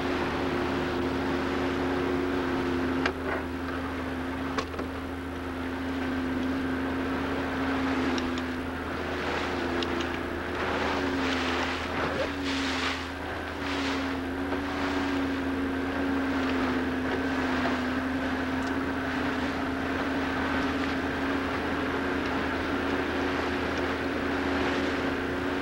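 Motorboat engine running steadily, heard from on board, with a steady hum that wavers slightly in pitch. Wind and water rush past, with a few louder splashy gusts in the middle.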